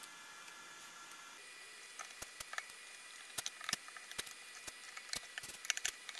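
Scattered light clicks and taps of small parts being handled while an analytical balance is put back together, over a faint steady hiss.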